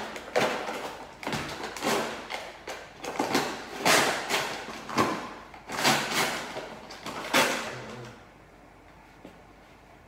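Packaging of a new cat litter box being opened by hand: a run of sharp rustles and knocks that stops about eight seconds in.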